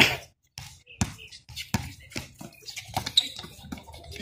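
Basketball bouncing on an outdoor hard court: a sharp, loud bounce at the start, then a string of irregular, quieter bounces.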